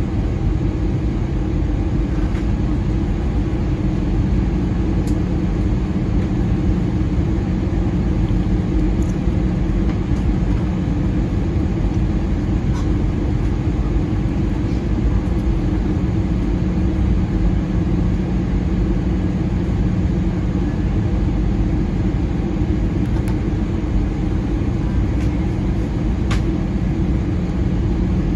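Steady cabin drone of an Airbus A320-216 on approach: its two CFM56-5B6 turbofans and the rushing airflow, heard from a window seat beside the wing, with a low hum and a few faint ticks.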